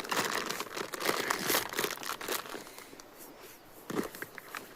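Plastic food packaging crinkling and rustling as it is handled, in irregular bursts, busiest in the first couple of seconds.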